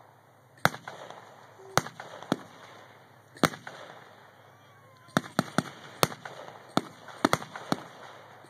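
Distant gunfire at a battle demonstration: sharp single cracks about a second apart at first, then a quicker irregular run of about nine shots in the second half.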